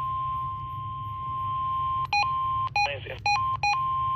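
NOAA Weather Radio 1050 Hz warning alarm tone sounding steadily, the long single-pitch tone that signals a warning such as a severe thunderstorm warning is about to be read. About halfway through it is broken four times by short beeps of a different pitch, with a brief garbled burst in between.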